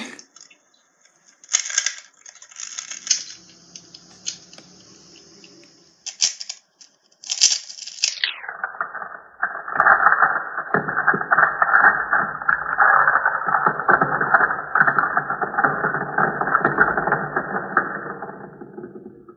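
Plastic speed cube being turned rapidly: a dense, fast run of clicks through the second half, heard through a video call's thin, narrow-band audio. Before that, a few scattered clicks.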